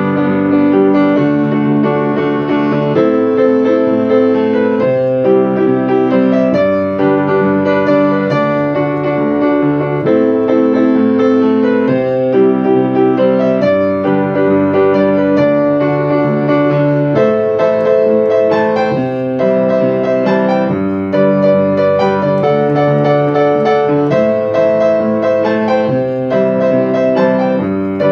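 Yamaha piano played with both hands: held chords changing every second or two beneath a melody, playing continuously.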